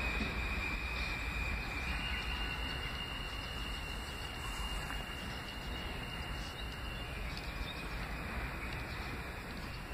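R160B subway train running away into the distance: a low rumble with a steady high-pitched whine that steps up slightly about two seconds in and fades out around seven seconds.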